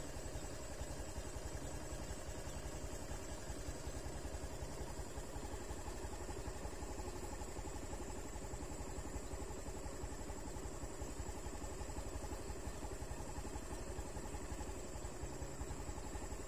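An engine idling steadily, with a fast, even pulsing that does not change.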